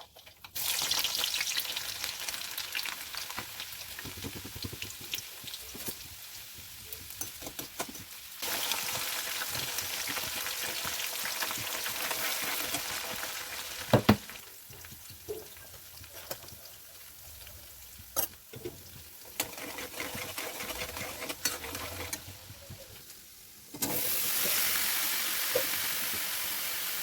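Food sizzling in hot oil in a pan while being stirred, the sizzle stepping suddenly louder or quieter a few times, with a couple of sharp knocks of a utensil against the pan partway through.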